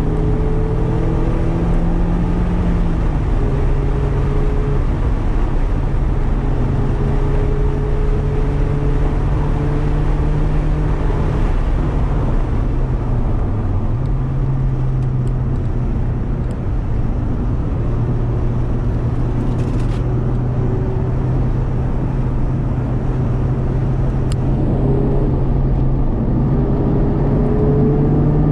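Mazda MX-5 RF's four-cylinder engine through a Cobalt aftermarket exhaust, running at steady revs while driving, over road noise. The engine note dips briefly about halfway through, then settles, and climbs again near the end.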